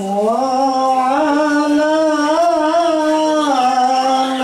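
A man singing sholawat, Islamic devotional praise of the Prophet, solo into a microphone: long held notes that waver in ornamented turns, the melody climbing about a second in and settling lower near the end.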